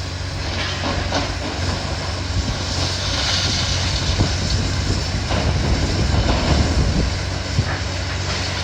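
Heavy demolition machinery working: a steady engine hum under a noisy hiss, with a few short knocks and crunches.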